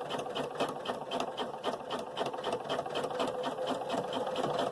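Sewing machine running steadily, stitching a zipper onto a bag: a motor hum under an even, rapid rhythm of the needle.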